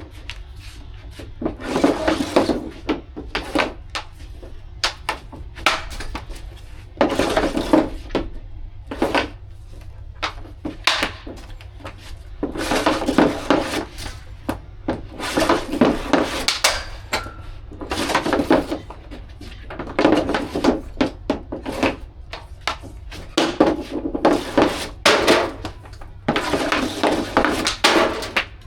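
Ice-hockey practice: skate blades scraping across the ice in repeated strokes, with sharp clacks of stick on puck among them, over a steady low hum.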